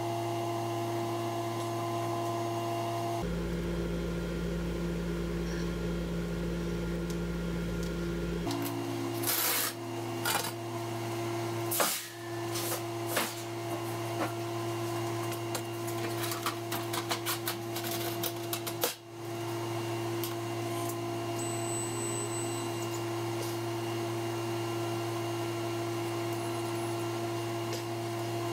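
Steady hum of shop machinery. In the middle stretch it is broken by a run of sharp metal clanks and knocks as a sheet of 3/16-inch mild steel is handled and laid onto the steel slats of a CNC plasma table.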